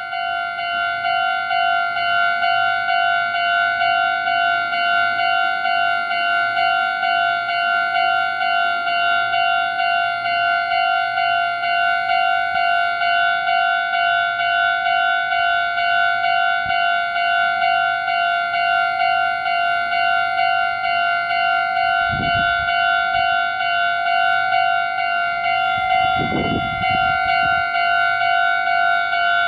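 Japanese railway level crossing's electronic warning bell ringing its rapid, evenly repeated 'kan-kan' tone, signalling that a train is approaching. Two brief low rumbles come in near the end.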